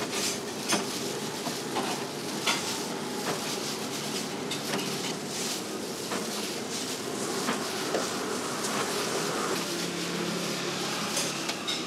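Noodles tossed and dropped by hand on a perforated stainless-steel warming tray as they are heated: irregular soft slaps and light taps on the metal over a steady hiss.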